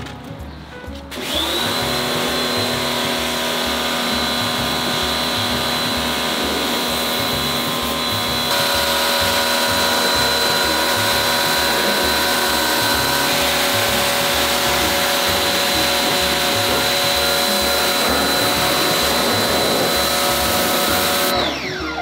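Pressure washer running, its jet of water hissing against a plastic air-conditioner panel: a steady motor whine that starts about a second in and falls in pitch as it shuts off just before the end. Background music with a steady beat underneath.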